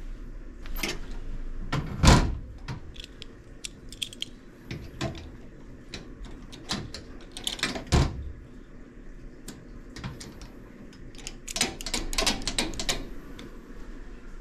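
Sheet-metal locker handled: a loud knock about two seconds in as the door is shut, another knock midway, then a quick run of small metallic clicks and rattles as a push-button combination padlock is fitted to the hasp and snapped shut.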